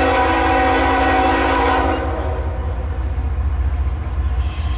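Diesel locomotive air horn on a loaded CSX coal train, a chord of several steady tones held in one long blast that ends about two seconds in. A steady low rumble runs underneath.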